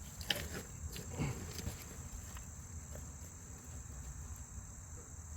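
Steady high-pitched insect chorus, with a low rumble underneath and a couple of faint knocks in the first second or so.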